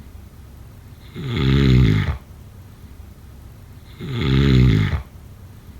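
Snoring: two long, pitched snores about three seconds apart, each lasting about a second, with quiet gaps between them.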